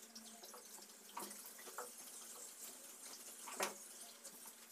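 Faint water running from a bathroom sink tap, with light splashes of washing during wudu, the Islamic ablution before prayer. A single sharp click about three and a half seconds in.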